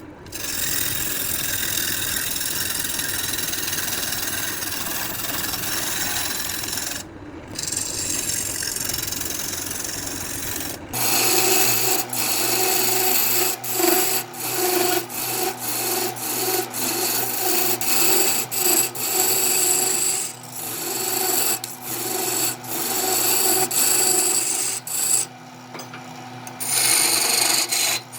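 Wood lathe turning, with a tool scraping and rubbing against the spinning wood in uneven strokes. About eleven seconds in the sound changes, and a steady hum runs beneath the strokes from then on.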